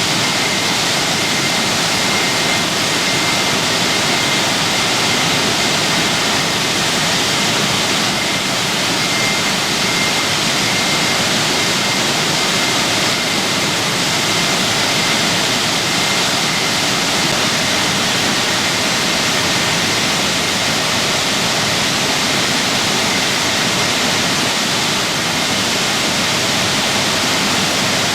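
Waterfall pouring in a steady, loud rush. The falls are running full after heavy rain.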